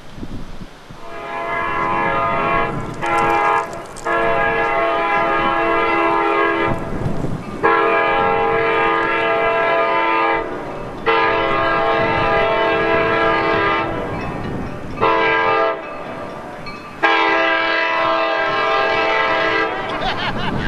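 Diesel locomotive's multi-chime air horn sounding a series of blasts, mostly long with a short one near the end, closing in the long-long-short-long pattern of a grade-crossing warning. Low train rumble runs underneath.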